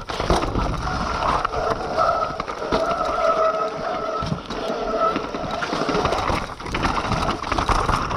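Mountain bike riding fast down a rough dirt trail: tyres rolling over dirt, roots and rocks, with the bike clattering and rattling over the bumps and a steady buzz underneath.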